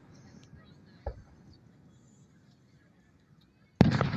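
Aerial fireworks: a faint, distant thud about a second in, then a sudden loud shell burst near the end with its echo trailing off.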